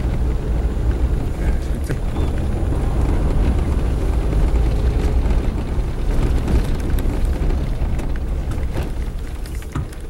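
Suzuki Jimny driving along a dirt road, heard from inside the cabin: a steady low engine and tyre rumble with scattered light knocks.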